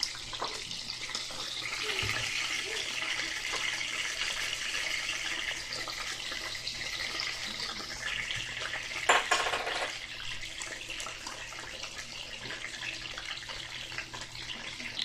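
Pieces of chicken frying in hot oil in a pan, a steady sizzle, with a brief louder burst about nine seconds in.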